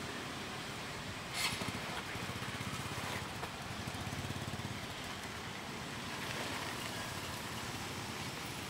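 Steady outdoor background noise with a low rumble that swells through the middle, and one short sharp sound about a second and a half in.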